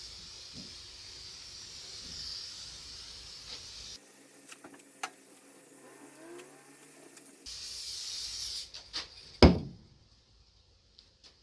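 Aerosol can of oil-free dry lubricant spraying in a steady hiss onto the table saw top, stopping for a few seconds and then spraying briefly again. A single sharp knock comes near the end.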